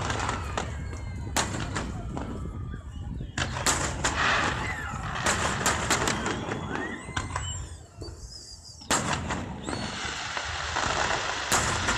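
Fireworks salute: shells bursting with several sharp bangs at uneven intervals, over the noise of a crowd of onlookers.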